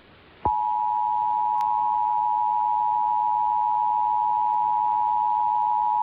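Emergency Alert System attention signal: a steady two-tone alarm with 853 Hz and 960 Hz sounding together, announcing the broadcast's Required Monthly Test. It starts with a click about half a second in, after a brief near-silent gap.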